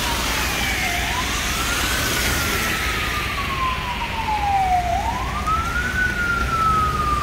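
An emergency vehicle's siren wailing, its pitch rising quickly and then falling slowly, twice. Under it is the hiss of car tyres on a wet road, strongest at the start as a car passes.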